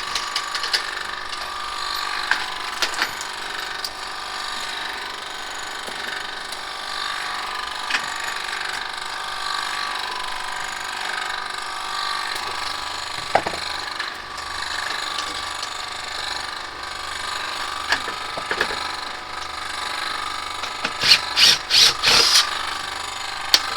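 Air conditioner running in cooling mode with a steady, loud mechanical whirr, which the installer calls a tremendous noise. A few sharp knocks sound near the end.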